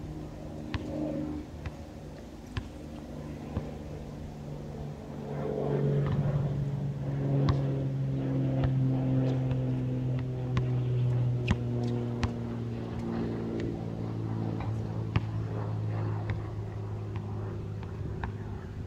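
A basketball bouncing on a concrete court, single sharp smacks at uneven intervals. From about five seconds in a passing engine's hum swells to become the loudest sound, its pitch slowly falling as it fades.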